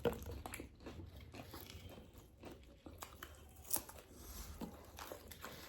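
Eating KFC fried chicken: quiet chewing and biting with scattered crisp crunches and clicks, the sharpest right at the start and one about three and a half seconds in.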